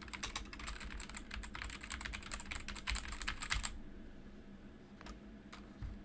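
Typing on a GK61 60% mechanical keyboard with optical brown switches: a fast, dense run of keystrokes that stops a little past halfway, followed by a couple of single key presses.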